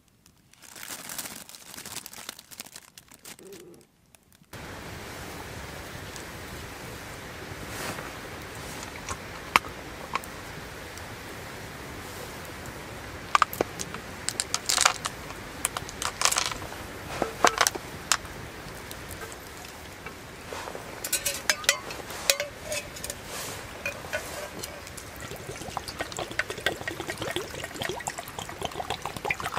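Hard dried wild chestnut pieces dropped by hand into a metal mess tin of glutinous rice, clicking and clattering against the tin in small clusters. Near the end, water is poured from an aluminium canteen into the tin.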